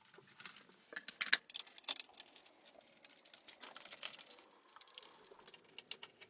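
A run of irregular light clicks and taps, the loudest cluster about a second and a half in.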